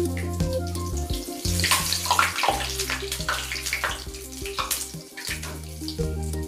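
Potato bondas deep-frying in hot oil, bubbling and sizzling, with surges of sizzle as a wire spider skimmer turns them in the oil. Background music plays underneath.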